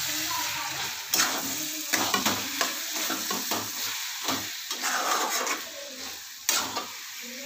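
Steel spatula stirring and scraping vegetables frying in ghee in a pan: a steady sizzle broken by irregular scrapes and knocks of the spatula against the pan.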